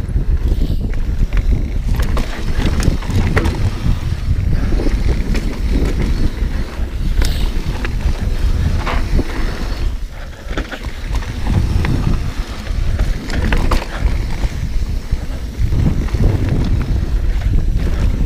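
Mountain bike descending a rough dirt trail: steady wind rumble on the microphone under the hum of tyres on dirt, broken by many sharp clatters and knocks as the bike rattles over roots and rocks, easing briefly about ten seconds in.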